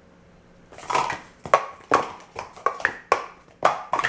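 Speed Stacks plastic sport-stacking cups being rapidly stacked up and brought down on a stacking mat: a quick run of hollow plastic clacks, about two to three a second, beginning about a second in.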